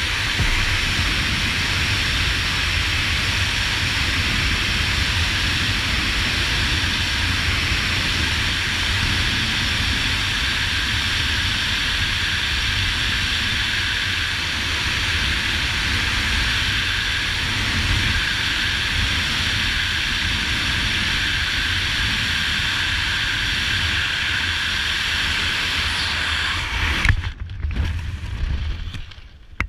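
Loud, steady wind rush over a helmet-camera microphone during a base-jump freefall. About 27 seconds in the parachute opens with a brief loud burst, and the wind noise drops away abruptly.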